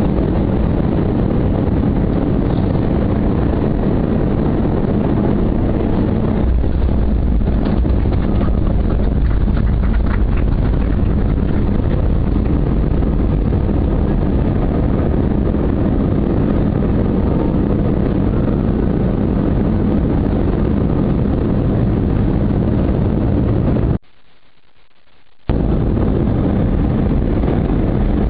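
Airliner landing: a steady, loud, deep rumble of engines and rushing air, which grows heavier in the low end about six seconds in. The sound drops out abruptly for about a second and a half near the end, then the rumble returns.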